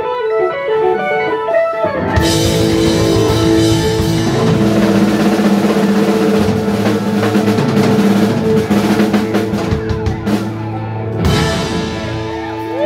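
Live rock band with electric guitars, bass and drum kit: a quick run of lead guitar notes, then about two seconds in the whole band crashes in on a long held chord with the drums rolling underneath. It sounds like the song's big closing flourish, with one more hit near the end.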